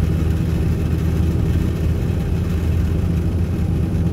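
Steady low drone of a Peterbilt 579's Paccar MX-13 diesel engine heard from inside the truck's cab.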